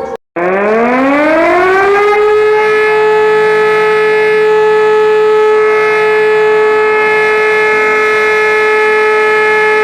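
Outdoor warning siren starting after a split-second of silence: it winds up in pitch over about two seconds, then holds one steady, loud wail.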